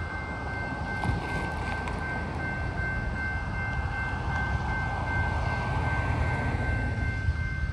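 A grade-crossing bell rings steadily over the low rumble of an approaching BNSF intermodal freight train, which slowly grows louder.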